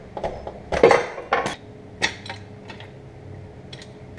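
Metal car parts and tools clanking and clinking as they are handled, with a burst of loud clanks about a second in and lighter clinks after.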